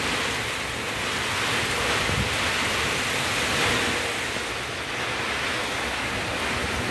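Heavy rain pouring down in a strong, gusty wind: a steady rushing hiss that swells and eases a little.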